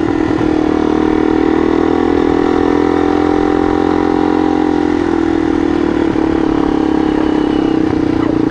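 Yamaha XT dual-sport motorcycle's single-cylinder four-stroke engine running steadily at low road speed on gravel, its pitch easing off a little past the middle and picking up again near the end.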